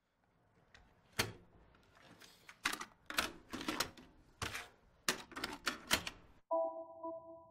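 Plastic clacks and knocks of a tape being handled and pushed into a tape recorder's loading slot, about eight sharp strokes. About six and a half seconds in, a steady electronic beep of several pitches starts abruptly and holds, wavering slightly.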